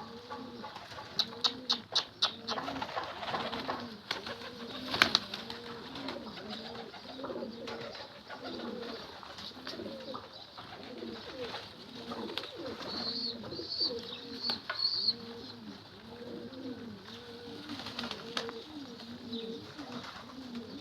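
Domestic pigeons cooing continuously, overlapping low rising-and-falling coos about once a second. A handful of sharp clicks sound in the first few seconds, and a few short high chirps come about two-thirds of the way through.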